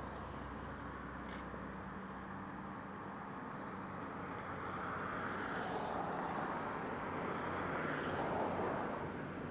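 Cat 345C hydraulic excavator's diesel engine running, with the steel bucket scraping dirt along the edge of a trench. The sound grows louder about halfway through as the bucket drags and curls up loaded.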